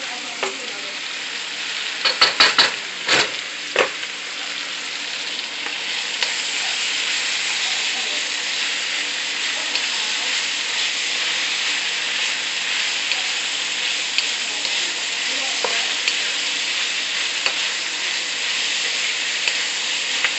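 Beef, onions and carrots sizzling steadily in a hot wok while being stir-fried with a wooden spatula. A quick run of sharp clacks, the spatula knocking against the wok, comes about two to four seconds in.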